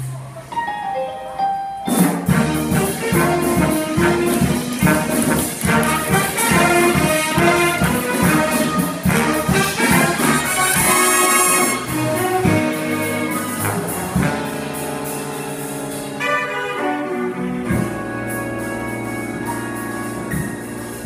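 Jazz big band playing live: saxophones, trumpets and trombones over piano, guitar, bass and drums. After a sparse opening of about two seconds the full band comes in with punchy rhythmic figures, then holds long chords through the last several seconds.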